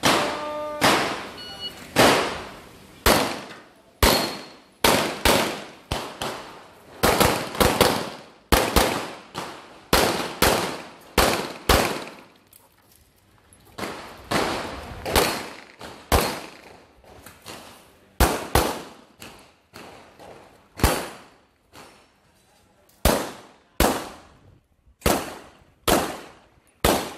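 A shot timer beeps once, then a semi-automatic pistol fires in quick strings of shots, with a lull of about two seconds around halfway before the strings resume.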